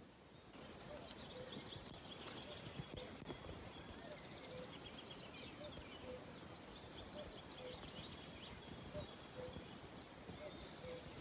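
Faint birdsong: several birds chirping and trilling in short high phrases, with a lower short note repeating about once a second.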